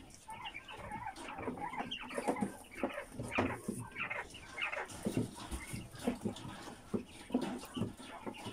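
White Giant Polar quail calling in short, irregular clucks and chirps inside a wire cage, mixed with light clicks and rattles of the wire mesh as hands handle the birds.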